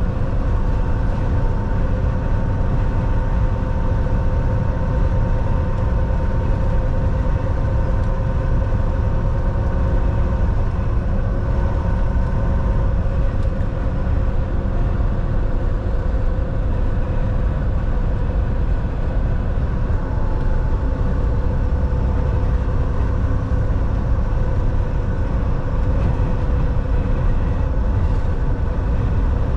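Volvo semi-truck under way: steady diesel engine drone with tyre and road rumble. A few steady tones ride on top and drift slightly in pitch.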